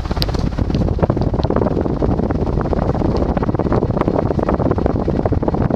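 Fasco Heat Cycler 52-inch industrial ceiling fan with its stack motor running on high speed: a loud, steady rush of air from the blades buffeting the microphone, the housing vibrating a bit.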